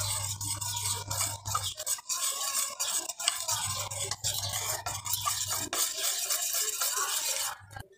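Wire whisk beating thick besan batter in a steel bowl: continuous rapid scraping, with the wires clicking against the metal sides.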